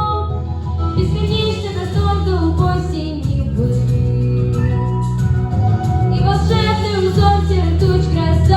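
A female voice singing a melodic song with held and sliding notes over instrumental accompaniment with a steady bass.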